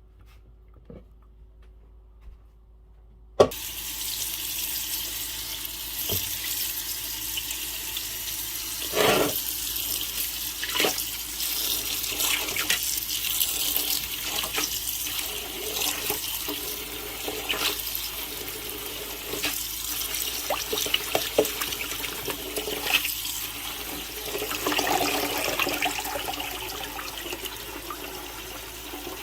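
Tap water running into a sink as foraged cleavers (sticky weed) are rinsed under it. The tap comes on with a sharp click about three seconds in, after a quiet start, and then runs steadily, with irregular splashes and knocks from the handling.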